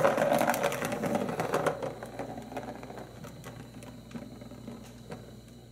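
A plastic ball clattering around the Turbo Scratcher's plastic track as a cat swats it: a quick run of clicks, loudest at the start, thinning and fading as it goes.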